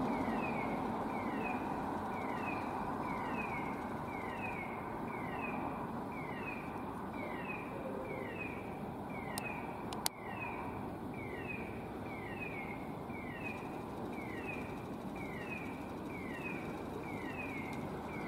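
A fire station's turnout alert sounding: short falling electronic chirps, about three a second, repeating steadily over a low hum of distant traffic. A single sharp click comes about ten seconds in.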